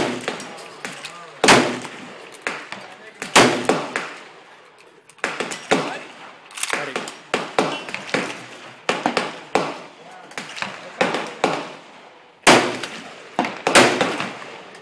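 Gunfire on a busy range: a string of sharp rifle reports, three of them much louder than the rest, about a second and a half, three and a half and twelve and a half seconds in, with many quieter shots from neighbouring firearms in between. The nearby shots plausibly include the Mosin-Nagant 91/30 sniper rifle in 7.62x54R.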